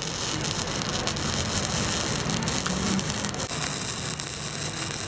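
Welding arc on steel square tubing, a steady crackling hiss.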